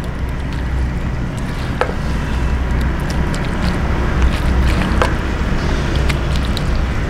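Steady low rumble throughout, with a few light clicks, about two seconds in and again about five seconds in, as a spoon scoops chickpea chaat from an aluminium pot into a clay dish.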